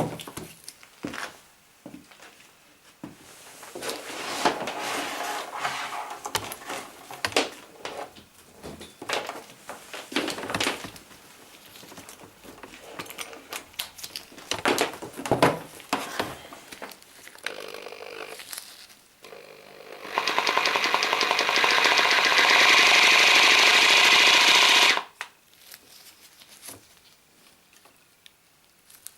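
Bosch GBH 3-28 DFR 800 W hammer drill switched on and run for about five seconds, starting about two-thirds of the way in and stopping abruptly. Before that, scattered clicks and rattles of the tool being handled.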